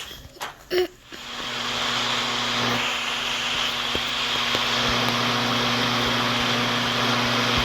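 Steady whirring of an electric appliance's motor, with a low hum under a hiss, starting about a second in after a few faint clicks.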